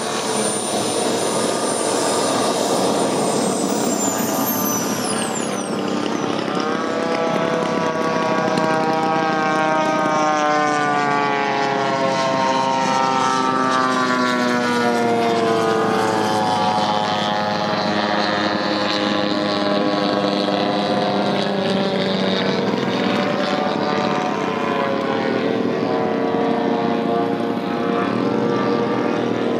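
Radio-controlled model aircraft engines running over a steady rushing noise. In the first few seconds a high whine falls in pitch. From about six seconds in, an engine drone sets in, its pitch sliding up and down for some ten seconds before it fades back into the noise.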